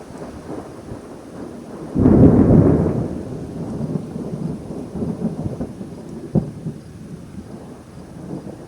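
Thunder: a sudden loud clap about two seconds in that rumbles on and slowly fades. A short, sharp crack comes a few seconds later.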